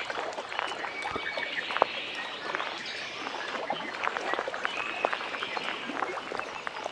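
Lakeside nature ambience: water lapping at the shore with many small splashes and clicks, under short, steady, high-pitched chirping calls that come about a second and a half in and again about five seconds in.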